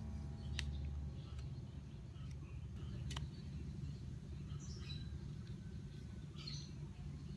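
Birds chirping now and then over a low outdoor rumble, with two sharp plastic clicks, about half a second and three seconds in, as the head of a Philips beard trimmer is handled and pried off.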